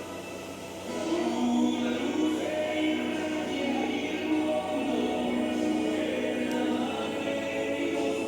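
Choir singing long, held notes that swell about a second in.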